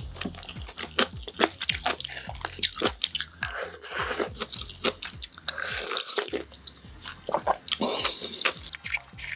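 Close-miked eating sounds: wet chewing with small mouth clicks, then a slurp of soup from a bowl about four seconds in, and chopsticks knocking in the bowl near the end.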